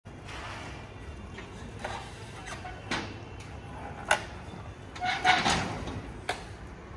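A handful of sharp knocks and metallic clunks from a flatbed truck's metal loading ramp as a sport bike is rolled down it, over a low steady hum. The loudest clunks come a little past the middle.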